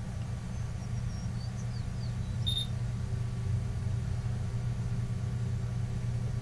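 Steady low background hum, with a single short high-pitched beep about two and a half seconds in.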